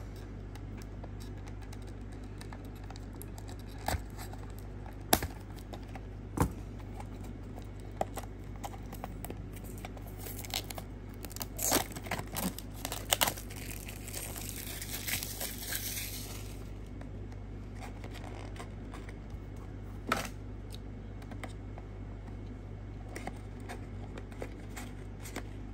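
Hands unpacking a small cardboard die-cast model car box with a clear plastic insert: scattered clicks and taps of cardboard and plastic, and a stretch of plastic crinkling and tearing about halfway through, over a steady low hum.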